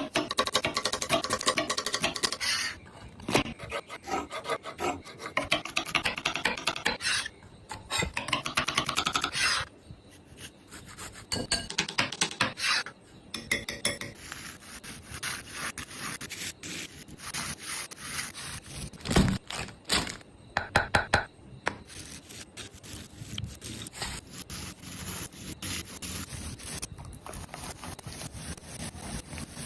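Food-preparation sounds in a kitchen: repeated rubbing and scraping with clusters of clicks and knocks, coming in several separate stretches with short pauses between them.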